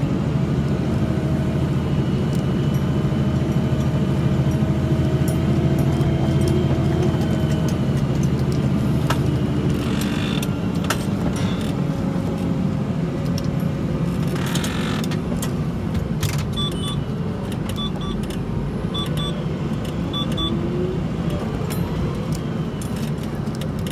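Tractor engine running steadily under load while ploughing, its pitch rising and falling slightly, with light rattles. A short series of faint high beeps sounds in the later part.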